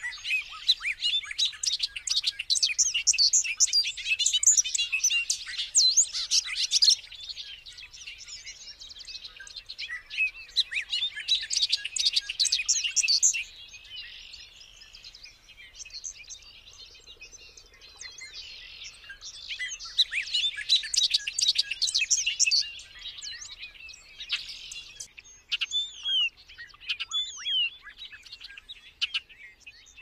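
Bobolink singing: three long runs of its rapid, jumbled, high notes, with quieter stretches between them, then a few separate slurred notes near the end.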